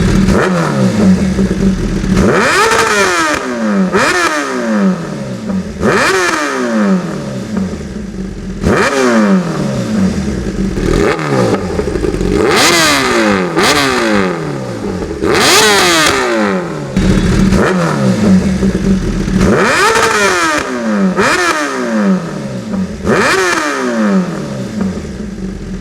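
Kawasaki Ninja ZX-10R inline-four with an SC Project muffler being free-revved at standstill: a dozen or so sharp throttle blips, one every second or two. Each one revs up quickly, then falls back to idle.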